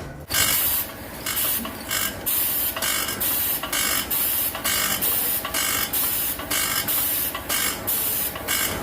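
A workshop tool making short, regular bursts of hissing mechanical noise, about three a second.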